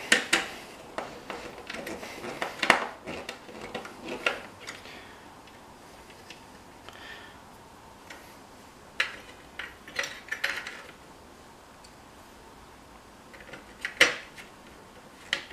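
Small plastic and metal parts of a 3M Cantata 700 tape cartridge clicking and clinking as it is reassembled by hand. A cluster of sharp clicks over the first four seconds, a few more about nine to eleven seconds in, and one loud click near the end.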